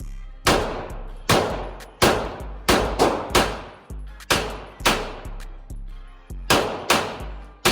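Pistol shots from a Glock in an MCK Micro Conversion Kit, about ten sharp cracks fired in quick, uneven succession, each with a long ringing tail. Background music with a deep bass line plays under the shots.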